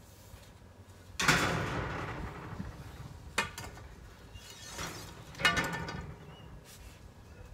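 Hard objects knocking together: a loud clatter about a second in that rings on for over a second, a short sharp knock, then a second ringing clatter.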